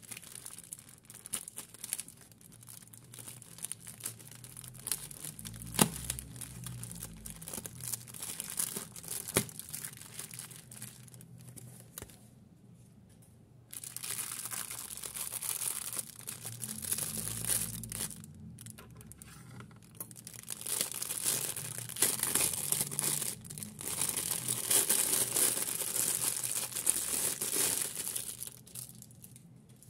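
Clear plastic doll packaging crinkling and rustling as hands handle it and unwrap it, with small sharp crackles. There is a short lull near the middle, and the crinkling is louder in the second half.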